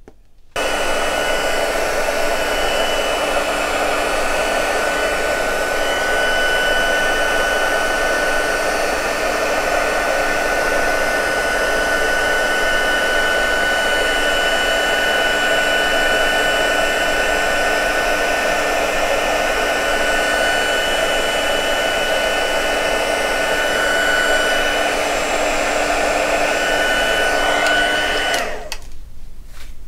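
A handheld embossing heat gun runs steadily, its fan blowing hot air with a steady whine to melt embossing powder on stamped card. It switches on about half a second in and cuts off near the end.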